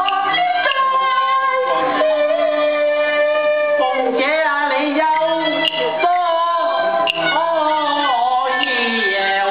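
Cantonese opera singing: a woman's voice sings long, gliding, wavering notes over a live accompaniment of traditional instruments.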